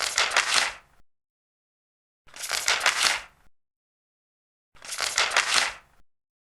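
Large paper pages turned one after another: three crisp rustling page turns, each lasting about a second, with silent gaps of roughly a second and a half between them.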